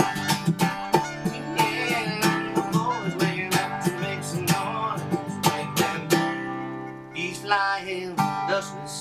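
Background country music: a strummed guitar with a steady beat, thinning out and growing quieter after about six seconds.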